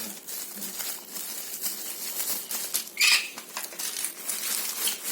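Small hard parts clicking and tapping as they are handled, with a louder brief rustle or scrape about three seconds in.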